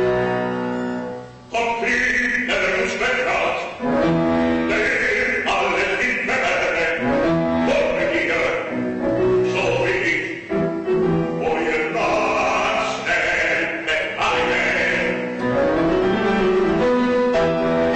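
Operatic singing over piano and bowed-string accompaniment; the voice comes in about a second and a half in after a brief drop in the accompaniment, and sings in long phrases.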